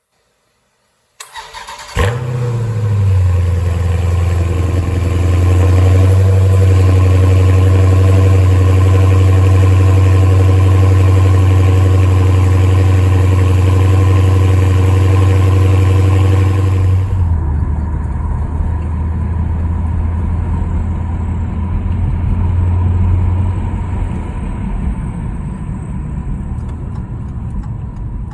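Dodge Challenger's engine cranked by the starter and catching about two seconds in, then running at a steady fast idle with a deep hum. About two-thirds of the way through the sound turns suddenly duller and the idle carries on lower.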